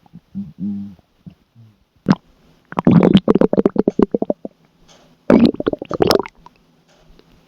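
Human stomach gurgling: a few short squeaky gurgles in the first second, then two loud runs of rapid bubbling gurgles, one about two seconds long and a shorter one near the end.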